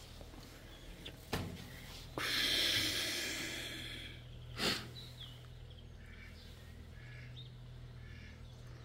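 A splash into canal water, likely the magnet on its rope going in, starting suddenly and fading over about two seconds, after a sharp click. Then a short sniff and a few faint bird chirps.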